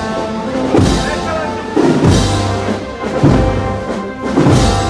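Processional band playing a slow Holy Week march behind the palio: held chords with a heavy bass drum stroke a little more than once a second.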